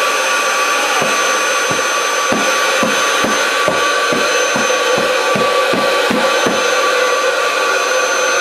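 Electric air pump running steadily with a whine, blowing air into a vinyl inflatable toy. A quick run of soft low thumps, about three a second, sounds over it from about a second in, stopping about two seconds before the end.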